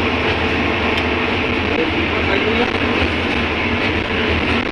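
Inside a moving city bus: the engine drones with a low hum and road rumble, steady and unbroken.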